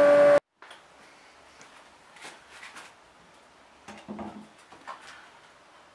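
Small bench-top circular table saw running with a steady motor hum that cuts off suddenly less than half a second in. Then soft clicks and light knocks as a granite plate is handled and set down on wooden blocks, the loudest knocks about four seconds in.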